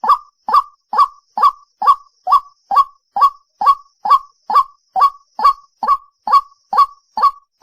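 White-breasted waterhen calling, one short loud note repeated evenly a little over twice a second: its 'cuốc cuốc' call.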